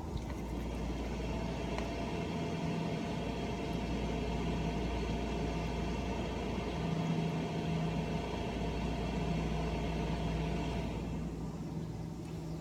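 Steady low mechanical hum, like an engine or motor running, with a constant pitch throughout.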